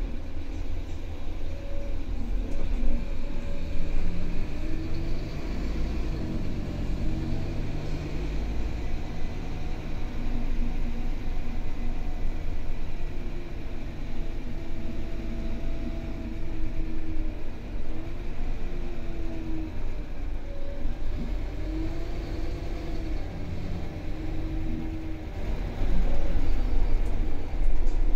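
Inside a Scania K320UB city bus under way: its rear-mounted nine-litre five-cylinder diesel runs with a steady low rumble, the engine note rising and falling as the bus speeds up and slows. It gets louder near the end.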